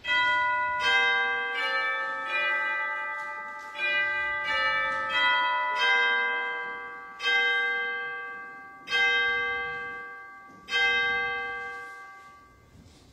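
Church bell chimes. A quick run of struck melody notes comes first, then three slower single strikes about two seconds apart, each left to ring and fade.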